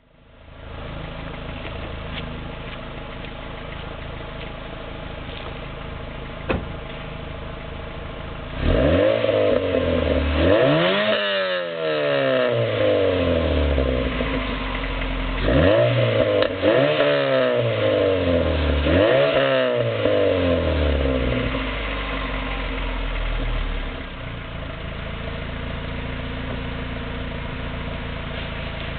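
Dodge Neon R/T's four-cylinder engine heard through its stock muffler, which has 49,000 miles on it and is slightly damaged. It idles steadily, is revved up several times in the middle with quick rising-and-falling blips, then drops back to idle.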